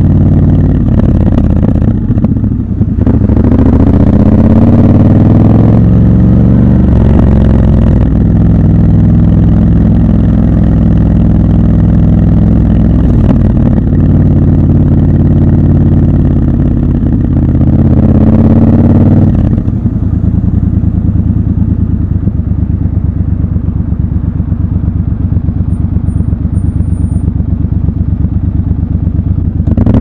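Triumph Scrambler 1200 XC's 1200 cc parallel-twin engine heard from the saddle, pulling through the gears, its pitch rising and breaking at each shift. About two-thirds of the way in it drops to a lower, evenly pulsing rumble.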